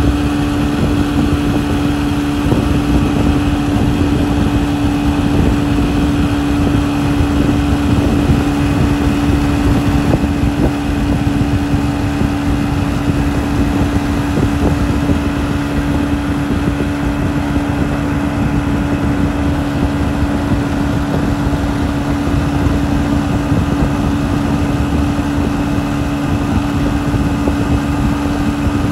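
Tow boat's engine running steadily at speed, a constant drone with a rush of noise underneath.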